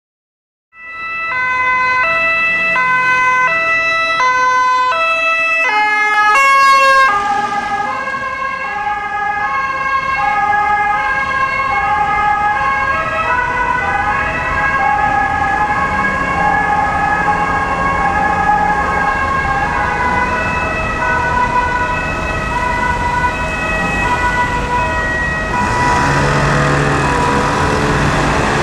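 Ambulance two-tone siren alternating between two pitches, fast at first; about seven seconds in the pitch drops and the alternation slows, over traffic noise. Near the end a vehicle engine and tyre rush grow louder close by.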